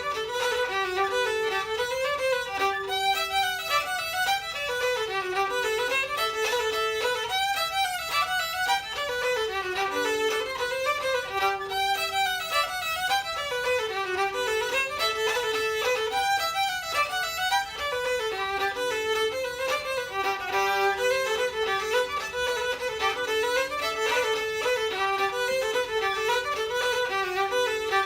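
Fiddle and whistle playing an Irish reel together, a continuous run of quick notes.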